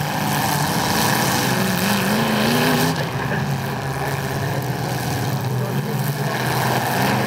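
Demolition derby cars' engines running together, one revving up in a rising whine about two seconds in.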